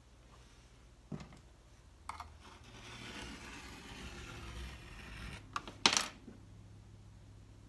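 Craft knife drawn through a soft clay slab along an acrylic ruler: a soft scraping over a few seconds, after a couple of light taps. Near the end comes a sharp double clatter, the loudest sound, as the knife is set down on the table.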